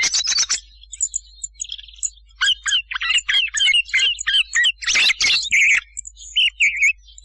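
Thrushes calling and singing: quick clusters of short chirps, clicks and whistled phrases with brief gaps between them. It is a hunting lure recording of thrush calls.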